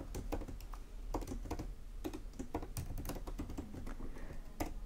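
Typing on a computer keyboard: quick, irregular key clicks, with one sharper keystroke near the end.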